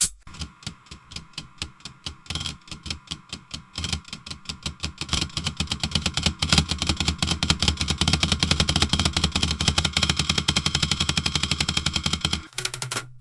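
Automated packaging machine running: a fast, even mechanical clatter of several strokes a second over a steady hum. The clatter gets denser and louder after about four seconds, then stops shortly before the end.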